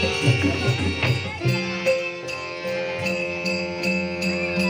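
Traditional Dashavatar stage music. Harmonium holds steady notes under drum strokes, which are heavy in the first second or so. A small jingling metal percussion keeps an even beat throughout.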